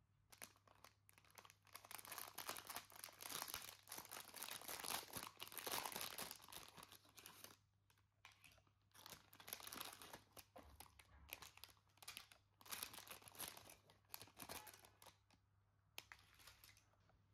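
Plastic packaging crinkling and crackling in irregular bursts as it is handled and unwrapped, with short pauses about eight seconds in and near the end.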